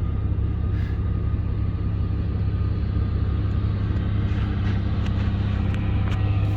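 Case Maxxum 125 tractor's diesel engine running at a steady low drone, with a few faint ticks in the second half.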